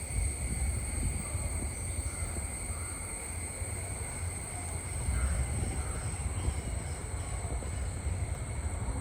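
Outdoor countryside ambience in which wind rumbles and buffets the microphone throughout. A few faint, short bird calls come from a distance, over a steady high hum.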